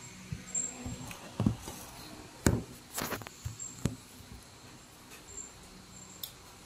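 Several sharp knocks and bumps in the first four seconds, the loudest about a second and a half and two and a half seconds in, then soft mouth sounds of people chewing ripe mango slices.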